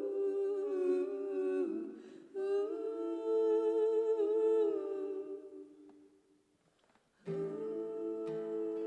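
Two voices humming a wordless, unaccompanied harmony in the opening of a folk song. The hummed phrase breaks off briefly, fades out about six seconds in, then starts again a second later with lower notes underneath.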